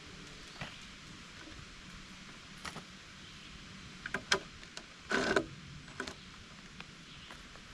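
A few light knocks and clicks, with a short scraping rustle about five seconds in, over a faint steady low hum.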